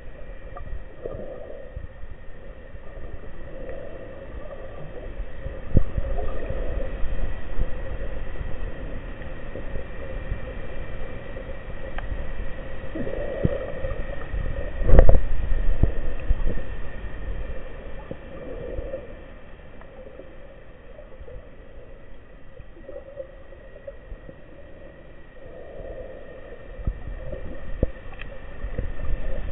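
Underwater sound as picked up through a diving camera's housing: a steady low rumble of water moving past, with soft swells every few seconds and one sharp knock about halfway through.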